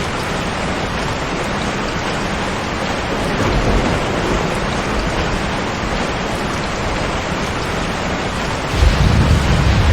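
Steady heavy rain with low rumbles of distant thunder: one swells briefly a few seconds in, and a stronger one breaks in near the end.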